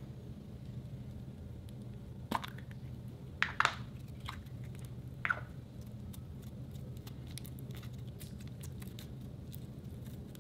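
Clear pink sequin slime being squeezed and kneaded by hand, with several sharp wet squelches between about two and five seconds in, then softer crackling clicks, over a steady low hum.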